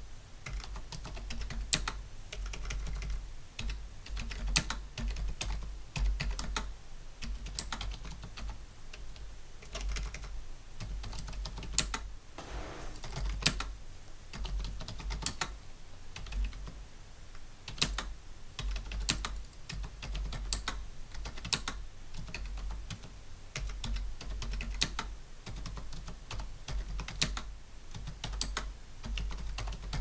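Logitech K400 non-mechanical keyboard being typed on steadily at a slow pace: a run of soft, uneven key clicks with a sharper, louder tap every second or two.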